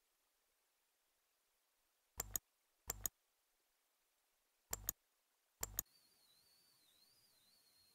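Computer mouse button clicked four times, each click a quick double snap of press and release, with near silence between.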